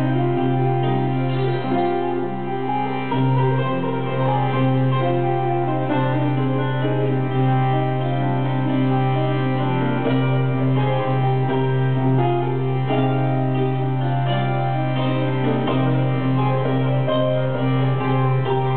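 Live instrumental psychedelic folk: acoustic guitar and mandolin picking over a held drone from a harmonium, with no singing.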